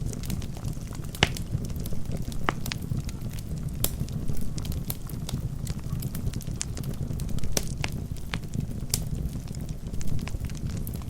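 Wood logs burning in a fireplace: a steady low roar of the fire with frequent irregular crackles and pops, one sharp pop about a second in.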